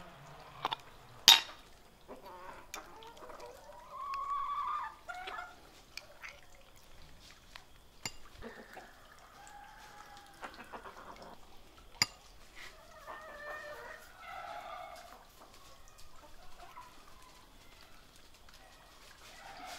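Chickens clucking on and off, with a few sharp clicks, the loudest about a second in.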